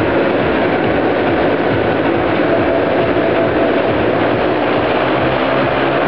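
Several motorcycles circling inside a steel mesh Globe of Death, their engines running hard in a steady, unbroken din.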